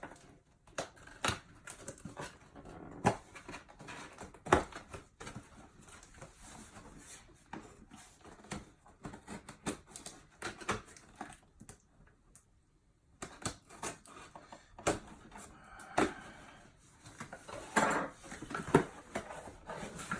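Cardboard box being opened and handled: scattered sharp clicks, taps and rustles, with a pet dog making small sounds close by.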